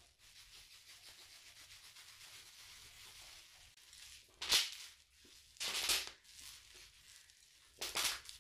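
Plastic bubble wrap rustling and crinkling as gloved hands handle it, with three louder crunches as it is squeezed: about halfway through, around six seconds in, and near the end.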